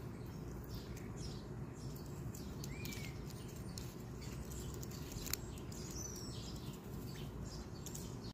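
Quiet outdoor ambience: a steady low rumble with two brief distant bird chirps and a few faint ticks, the sharpest about five seconds in.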